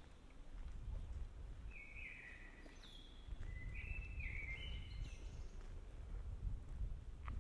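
City street background: a steady low rumble of traffic, with a run of high, held tones that step up and down in pitch for about three seconds in the middle.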